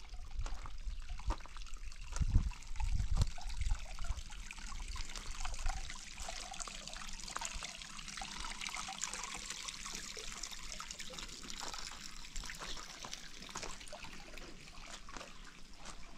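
Water trickling and splashing steadily, with a few low thumps in the first four seconds.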